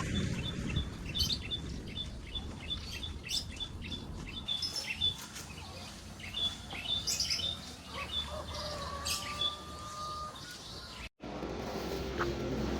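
Small birds chirping: many short, quick, high chirps repeated over and over, above a low rumble. About eleven seconds in the sound breaks off abruptly and a different, denser background takes over.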